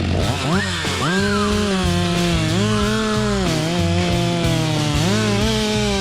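Two-stroke chainsaw revving up about half a second in and then running at high throttle through a cut, its pitch dipping and rising again several times, with background music underneath.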